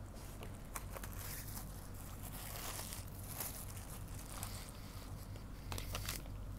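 Crinkling and rustling of the blue sterile wrap of a basic dressing set as it is unfolded by hand, with scattered small crackles.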